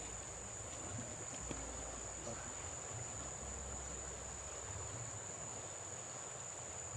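Insects calling in one unbroken, steady high-pitched drone, over a faint even hiss of moving floodwater.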